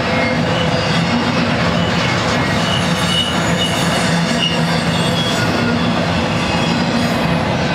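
Double-stack intermodal freight train's loaded well cars rolling past, a steady loud rumble of steel wheels on rail, with short high wheel squeals a few seconds in.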